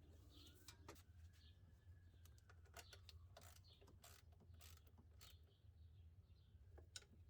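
Faint, irregular clicks of a socket ratchet tightening the bolts of an engine-bay bracket, barely above near silence.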